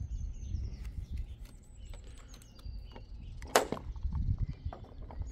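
Handling noise and a low rumble as a glued-down plastic roof trim strip is worked loose by hand, with one sharp snap about three and a half seconds in. Birds chirp faintly in the background.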